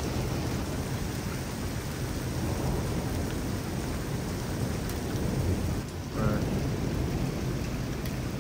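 Thunder rumbling low and continuously over steady heavy rain.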